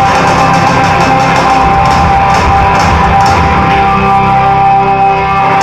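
Live rock band playing loud: distorted electric guitar, bass and drums with cymbal hits through the middle, heard from the audience.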